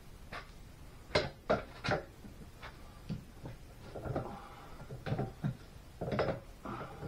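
Hand tools clanking against the steel rod end of a hydraulic cylinder: three sharp clanks about a second in, then lighter knocks and scrapes, and another loud clank near the end.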